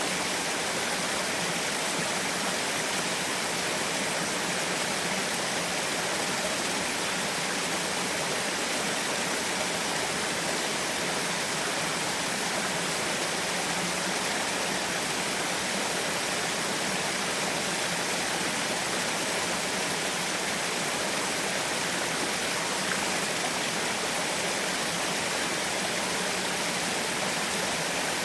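Small waterfall: water splashing down steadily in an even, unbroken rush.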